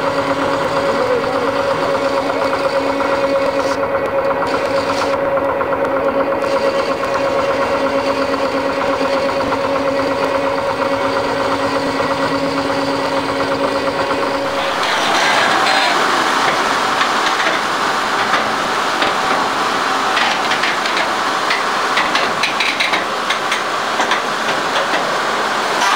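Bucket-chain gold dredge at work: a steady engine drone with a constant hum, then about halfway through a sudden change to louder clattering and knocking of the dredge's machinery close up.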